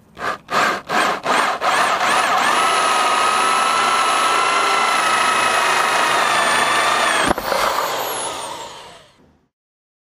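Corded electric drill with a small hole saw, first pulsed in short bursts on the trigger, then run steadily with a held whine as it cuts a round plug out of a wooden board. About seven seconds in the trigger is let go and the motor spins down with a falling whine.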